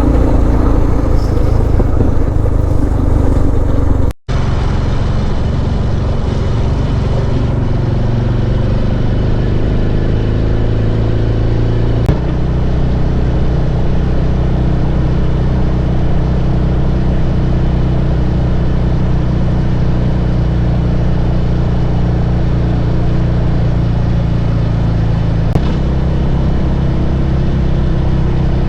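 Suzuki DR650's single-cylinder engine running at a steady cruising speed, with a steady rush of wind and road noise. The sound drops out for an instant about four seconds in.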